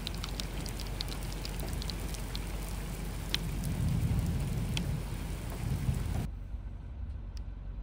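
Heavy rain falling on a flooded pavement: a steady hiss with scattered sharp drop splashes. Near the end the hiss drops away, leaving only a low rumble.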